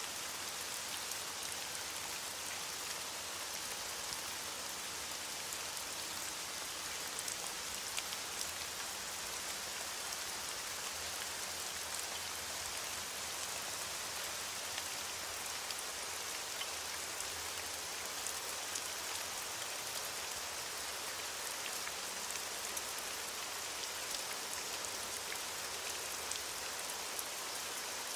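Steady heavy rain, a dense even hiss of falling rain with many small drop ticks scattered through it.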